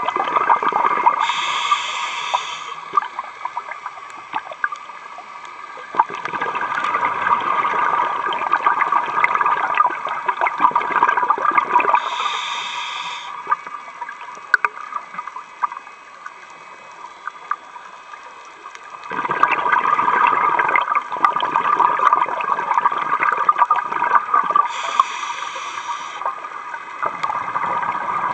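Scuba diver breathing through a regulator underwater: three short hisses of inhalation about eleven seconds apart, with long rushes of exhaled bubbles between them.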